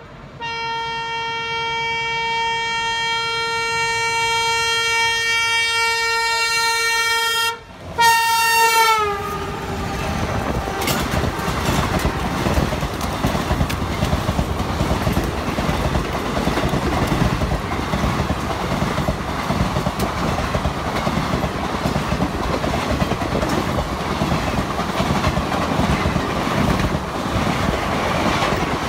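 An approaching express train's locomotive sounds one long horn, broken briefly near the end, and its pitch drops as the locomotive passes about eight to nine seconds in. Then the train's coaches rush past at speed, a steady loud rumble with the clatter of wheels over rail joints.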